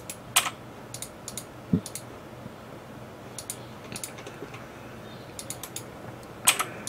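Computer mouse clicks and keyboard key presses, single sharp clicks at irregular intervals, the loudest about six and a half seconds in. There is a brief soft low thump about two seconds in.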